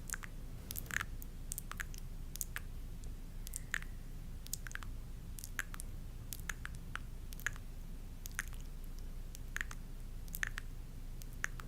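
Close-miked ASMR sounds: irregular soft, wet-sounding clicks and squishes, a few a second, over a steady low hum.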